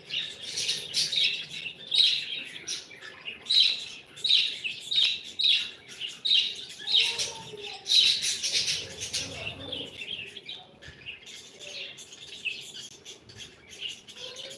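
Pet parrots chirping: quick, high chirps about two a second, louder through the first half and fainter near the end.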